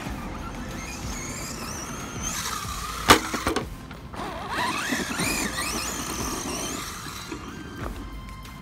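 Electric motor of a Pro-Line Pro-MT 4x4 1/10 RC monster truck whining up and down in pitch as it speeds up and backs off over dirt jumps. A single sharp knock about three seconds in is the loudest sound.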